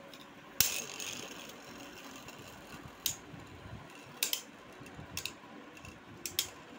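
Two Beyblade Burst spinning tops, Victory Valtryek and Storm Spriggan, whirring on plastic sheeting over a cardboard box stadium. They hit each other with sharp clacks: a loud one about half a second in and several more through the rest of the battle.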